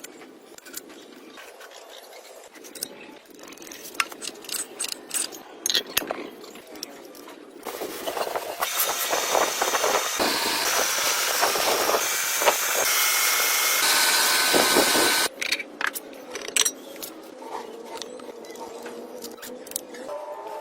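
Workshop tool work: scattered clicks and knocks, then a loud hissing machine noise for about seven seconds that cuts off suddenly, followed by more clicks.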